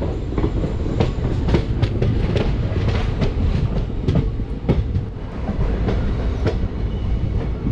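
Passenger train coaches running along the track, heard from an open doorway: a steady rumble with irregular clicks and clacks of the wheels over the rail joints.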